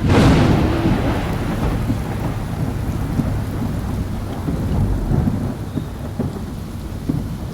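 A sudden thunderclap that rumbles away over the next couple of seconds, over steady heavy rain.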